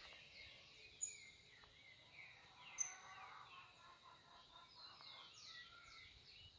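Faint twittering of small birds: many short falling chirps and a few sharp peeps, over a faint steady high tone.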